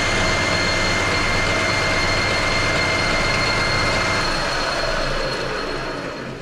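Metal lathe running at speed through a finishing cut on a steel bar: a steady machine noise with a high whine. One of the high tones stops about four seconds in as the tool comes off the work, and near the end the lathe begins to wind down.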